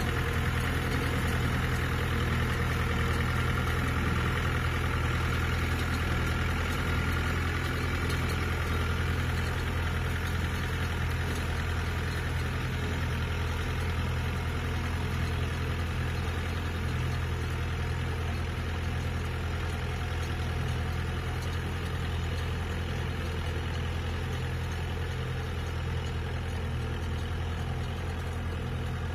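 Small tractor's engine running steadily with a low hum while it pulls a rice hill seeder through a flooded paddy, growing gradually a little fainter.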